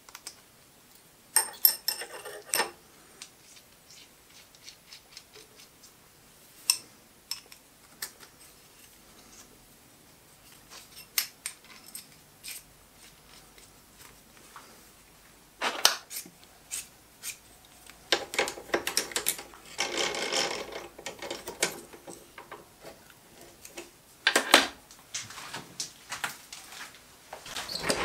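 Small steel parts handled by hand: a spring collet and a short steel rod clicking and scraping together as they are fitted into the collet nut and screwed up. Scattered metallic clicks, with bursts of scraping about two seconds in and again from about sixteen to twenty-one seconds.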